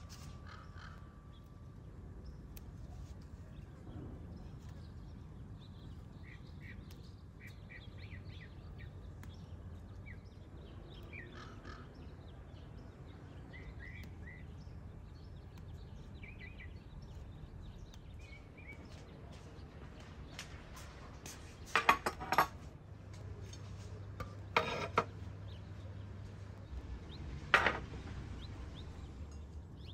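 Faint birds chirping over a low steady hum, then several sharp clinks of porcelain bowls and dishes set down on a tiled table, loudest about two-thirds of the way in and again near the end.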